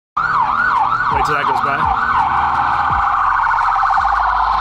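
Emergency vehicle siren: a yelp whose pitch sweeps up and down about three times a second, switching about two seconds in to a faster, steady warble, over a low traffic rumble.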